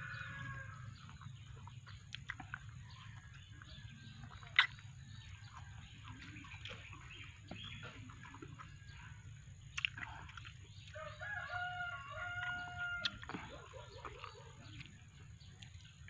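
A rooster crowing: one crow ends just after the start and another, held on one pitch for about two seconds, comes about 11 seconds in. A single sharp click about four and a half seconds in is the loudest sound.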